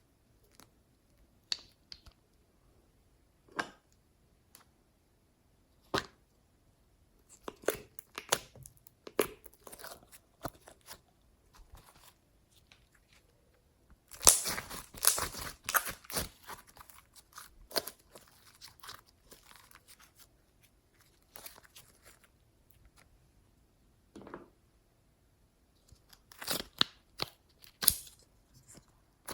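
Clear slime being worked by hand, making irregular sticky crackles, pops and tearing sounds. A dense run of crackling comes about halfway through, and another cluster comes near the end.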